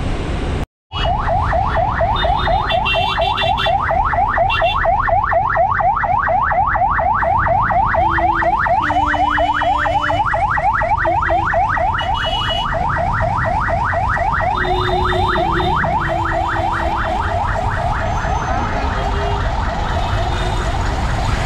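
An electronic alarm or siren yelping: a rapid, rising whoop repeated several times a second without a break, over the rumble of traffic. Vehicle horns sound briefly now and then.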